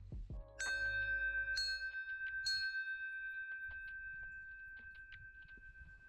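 Brass bear bell on a trail-side post, rung by pulling its cord: three strikes about a second apart, then a long ringing tone that slowly fades. It is rung to warn bears away.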